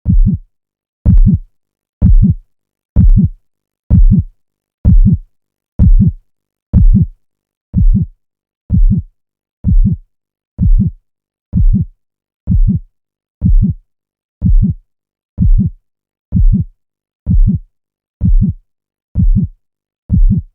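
Heartbeat sound effect: a slow, steady heartbeat, each beat a deep double thump (lub-dub), about one beat a second.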